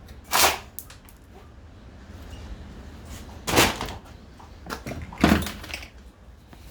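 Knocks and clatters of a string trimmer's plastic and metal parts being handled as it is taken apart by hand: three short loud clatters with a few lighter clicks between.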